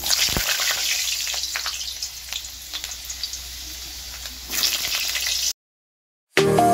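Vegetable slices dropped into hot oil in a kadai, sizzling loudly at once and easing into a steady bubbling hiss of frying. A fresh burst of sizzling comes about four and a half seconds in as another slice goes in. The sound cuts off abruptly and music starts near the end.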